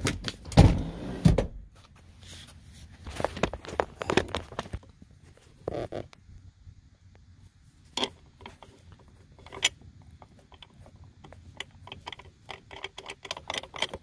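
Handling noises at a VW Beetle's front seat rails: a few heavy knocks about a second in as the seat is run forward, then scattered small metallic clicks and rattles as a steel seat-mounting bolt is handled and set into its hole in the rail.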